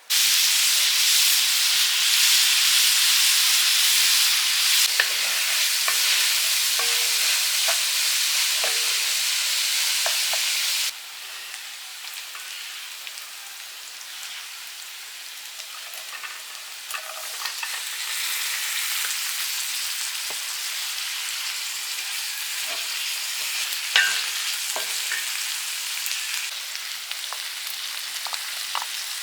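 Food sizzling as it fries in a hot pan, a steady hiss with scattered clicks and scrapes of stirring. The sound drops sharply about eleven seconds in and carries on quieter.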